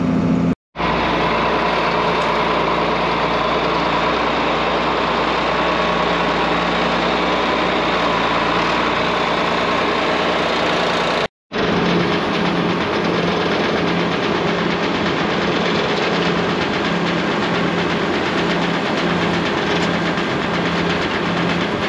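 BIG BITE tub grinder grinding round hay bales, its mill running as a steady mechanical roar together with the John Deere tractor's diesel engine under load. The sound breaks off twice for an instant, about half a second in and again around eleven seconds.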